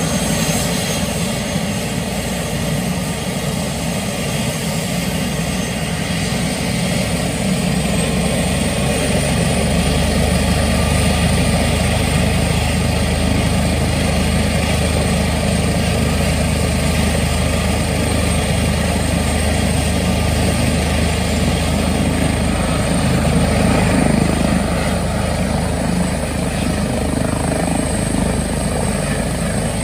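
Airbus H145 twin-turbine helicopter running on the ground with its rotors turning: a steady turbine whine over the rotor noise. About ten seconds in the low rotor beat grows stronger and the whine climbs slightly as it runs up toward takeoff.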